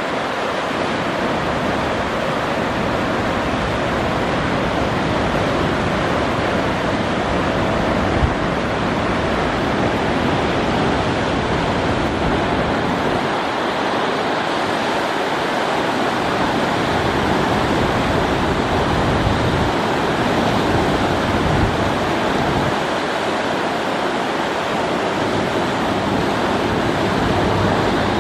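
River rapids rushing over rocks, a steady noise of fast-flowing water, with gusts of wind rumbling on the microphone at times.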